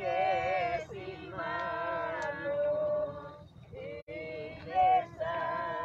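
A group of voices singing a religious hymn together, men and women, holding long wavering notes with short breaks between phrases.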